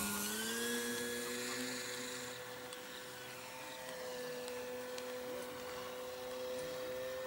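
Electric motor and propeller of a Top-Flite Cessna 182 RC scale model, giving a steady whine as the plane climbs away.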